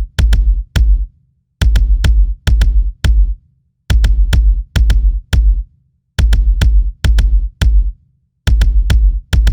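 Electronic drum-machine beat from an unfinished FL Studio track: heavy, deep kick-drum hits with sharp clicks on top, played in short bursts of about four hits, each cut off by a brief silence, repeating about every two and a half seconds.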